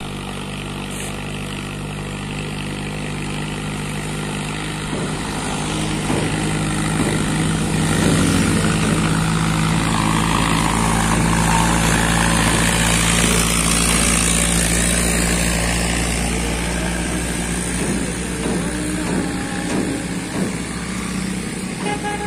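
Diesel farm tractor pulling two trailers loaded with sugarcane, its engine running at a steady pitch. It grows louder as the tractor approaches, is loudest as it passes close by midway through, and fades as it moves away.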